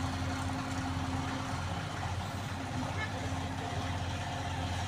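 JCB 3DX backhoe loader's diesel engine running steadily as the machine digs and loads mud.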